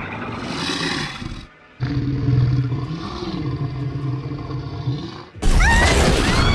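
A monster's deep growling roar, heard as a sound effect in two long stretches with a short break between them. Near the end a louder, harsher burst with shrill gliding screeches cuts in suddenly.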